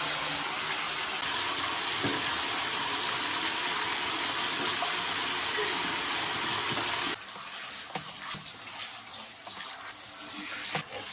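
Water rushing steadily from a bathtub tap into the tub. About seven seconds in it drops suddenly to a quieter, uneven spray and splashing as a hand-held shower head is pressed against a wet dog's fur.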